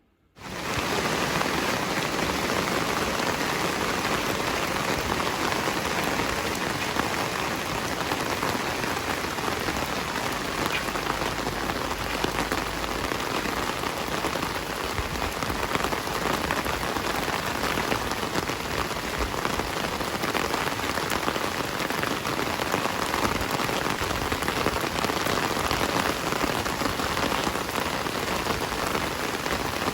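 Heavy rain falling steadily on surfaces, a dense even hiss. It cuts in abruptly after a moment of silence at the very start.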